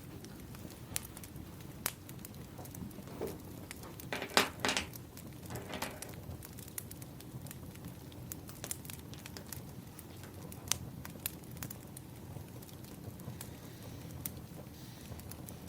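Wood fire crackling: a steady low rumble of burning logs with scattered sharp pops, and a cluster of louder pops about four to six seconds in.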